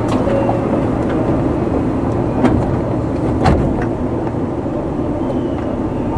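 Tokyu 9000 series electric train running, with a steady rumble of wheels on rail, heard from aboard the train. Two sharp clacks from the track come about two and a half and three and a half seconds in.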